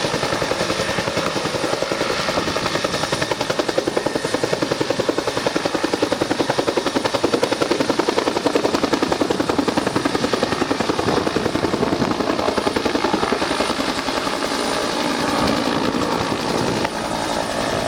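Search-and-rescue helicopter's rotor blades beating in a fast, even pulse, loud and steady, over the hiss of the engine.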